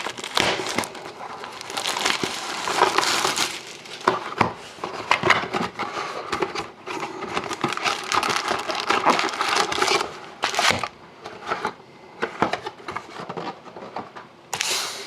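Plastic shrink wrap crinkling and tearing as a sealed hockey card box is unwrapped and opened. The dense crackling runs for about ten seconds, then thins to sparser handling sounds with a few sharp clicks.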